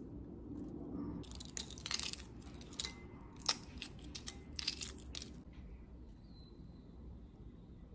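Shell of a hard-boiled egg being cracked and peeled off by hand: a run of sharp crackling and crunching that starts about a second in and lasts about four seconds.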